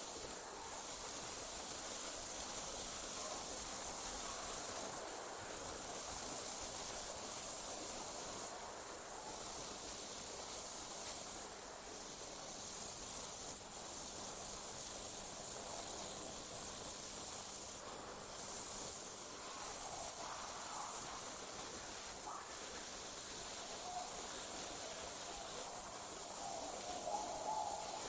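Night insects, crickets, trilling in a continuous high-pitched chorus, broken by brief pauses every few seconds.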